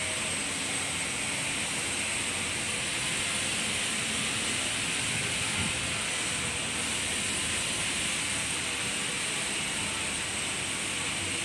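A steady hiss with no distinct knocks or clicks.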